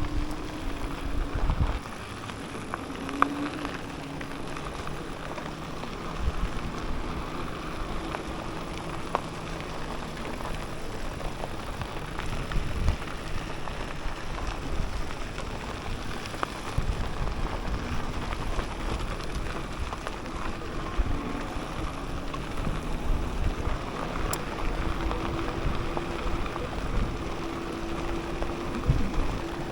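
Steady rushing noise of wind and tyres while riding a Mokwheel Obsidian e-bike on a dirt trail, with a faint hum that comes and goes.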